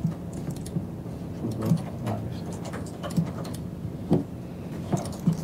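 Office room tone: a steady low hum with a few scattered soft clicks and knocks.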